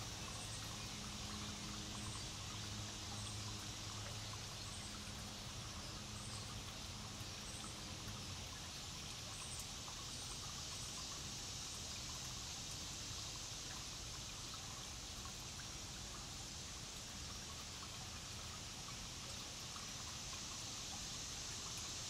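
Steady background hiss, with faint high ticks about once a second in the first half.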